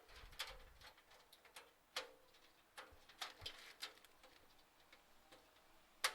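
Scattered light clicks and taps of thin metal, some leaving a short ring, as a motherboard I/O shield is handled and pressed into a PC case. A sharper, louder click comes near the end.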